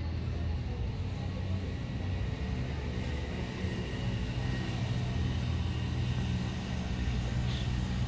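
Steady low rumble of a motor vehicle's engine running.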